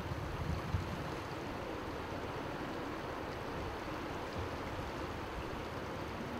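Steady rushing outdoor noise with an uneven low rumble, typical of wind on the microphone.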